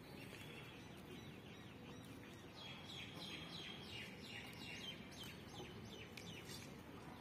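Birds chirping faintly: a run of short, quick downward-sliding chirps that is busiest through the middle few seconds, over faint steady background noise.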